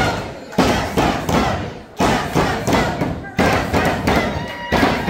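A wrestling crowd shouting over a run of heavy thuds that come about every half second to second, each hit sudden and then fading.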